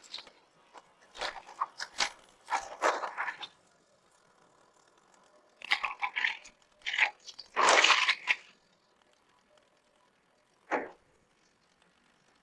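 Irregular bursts of crunching and scraping from loose gritty material being worked, in several clusters with pauses between, the loudest about two-thirds of the way through.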